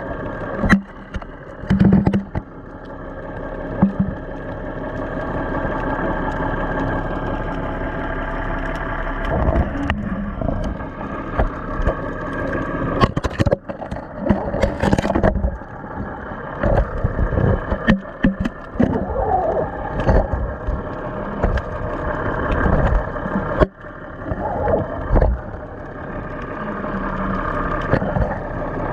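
Boat engine running steadily, with scattered knocks and thumps.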